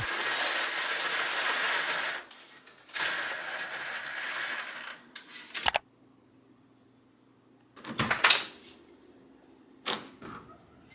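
Rustling and handling noise as a camera is moved and set in place, ending in a sharp click. Then a few short knocks and clicks.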